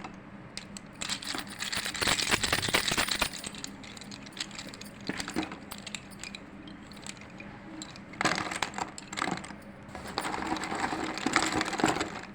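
Slate pencils being crumbled and crushed: bursts of dry, gritty crunching and crackling. The loudest stretch is about two seconds in, with more bursts near the end.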